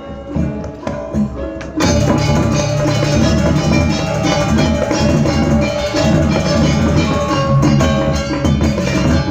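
Balinese gamelan in the Bebonangan style playing: a few separate struck gong-chime notes, then about two seconds in the full ensemble comes in loudly with dense, fast metallic gong-chime figures over drums.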